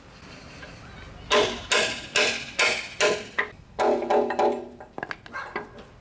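A hand hammer striking a steel punch set in the hub of an air conditioner outdoor-unit fan propeller, driving out the cut-off fan motor shaft: sharp metallic blows about two a second starting about a second in, some with a ringing tone, then lighter taps near the end.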